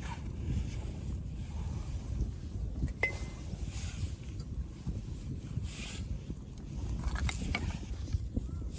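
Wood fire crackling, with scattered sharp pops and brief hisses over a steady low rumble.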